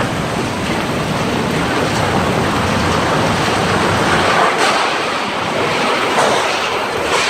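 Tornado winds making a loud, steady roar, with the gusts buffeting the microphone and a few faint knocks in the second half.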